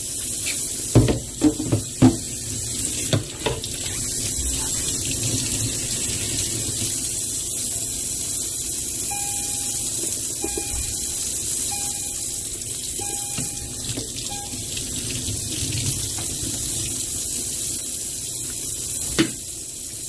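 Faucet running steadily into a stainless steel sink of soapy water. A few sharp knocks in the first few seconds as plastic vacuum dust-bin parts are handled.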